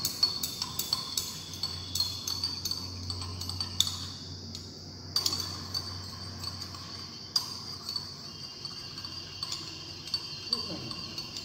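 Glass stirring rod clinking against the inside of a glass beaker, ticking about three or four times a second with a thin glassy ring, as phenol is stirred into a formaldehyde and acetic acid solution to dissolve it.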